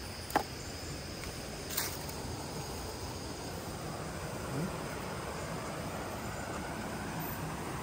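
Steady high-pitched insect chirring over a low outdoor hiss, with a sharp click near the start and another about two seconds in.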